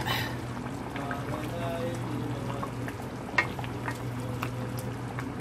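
Chicken curry sizzling gently in a pot on the stove, faint crackles over a steady low hum, with one sharp clink about three and a half seconds in.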